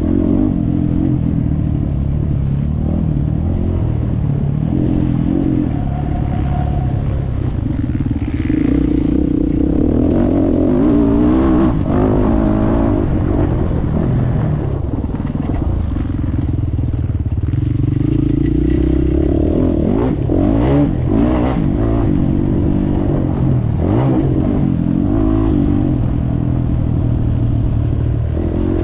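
A 450 cc motocross bike's engine, heard on board, revving up and falling back again and again as it is ridden hard, with clattering knocks from the bike over rough ground.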